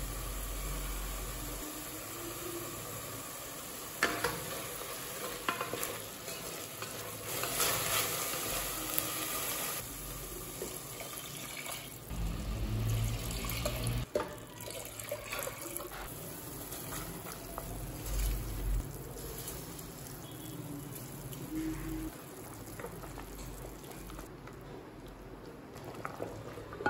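A spoon stirs and scrapes sizzling onion, tomato and spice masala in an aluminium pressure cooker, with a few sharp knocks on the pan. About halfway through, water is poured in from a jug, and the pot later bubbles as it comes to the boil.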